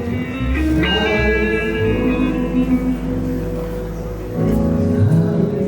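Live band playing instrumental music at a sound check: guitar chords and notes over a deep held bass tone that drops out near the end.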